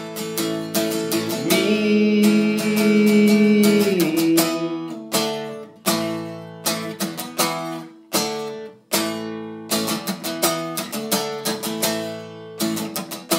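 Acoustic guitar strumming the song's chords, each strum ringing out before the next, about one a second in the second half. A long held note sits over the strumming from about a second and a half in until about four seconds.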